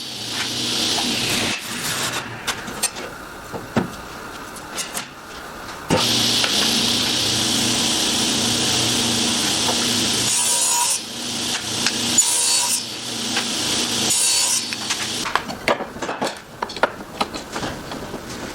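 Power tool working oak: steady runs of cutting or sanding noise with a motor hum, the longest from about six to eleven seconds. Shorter bursts follow, then scattered knocks and clicks of wood being handled near the end.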